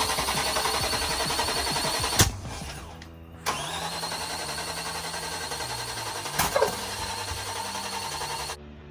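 A 5.3 LS V8 being cranked on its starter with starter fluid in the intake, still hard to start: the starter whine rises and the engine turns over with an even pulsing beat. A sharp click about two seconds in breaks off the first try, and a second crank follows from about three and a half seconds in, with a louder pop partway through.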